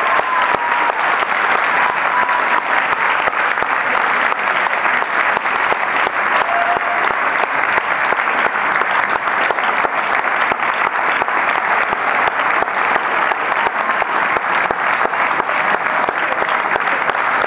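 Audience applauding: dense, steady clapping that holds at an even level.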